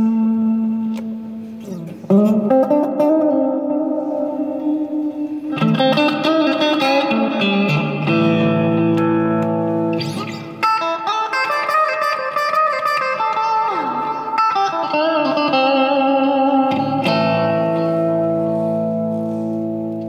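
Stratocaster-style parts-caster electric guitar played through an amp: bluesy single-note lines with bent notes and long-sustaining tones, mixed with ringing chords. The final chord dies away at the end.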